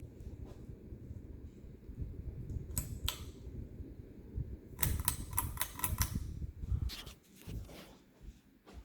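Hunter Amberlin ceiling fan running with a low, steady rumble, over which come a couple of sharp clicks and then a quick run of about eight rattling clicks around the middle. The sound fades down near the end.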